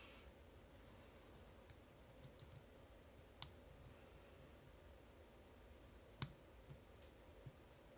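Faint, sparse metallic clicks of a lock pick and tension wrench working the spool pins of a Master Lock Pro Series 931D padlock. Two sharper clicks come about three and a half and six seconds in.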